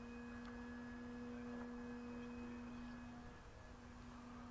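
Faint, steady whine of the E-flite Cessna 150 RC plane's electric motor and propeller in flight, holding one pitch and weakening a little about three seconds in.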